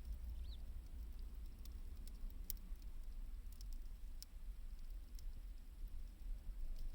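Wood fire burning with sparse, sharp crackles, roughly one a second, over a low steady rumble.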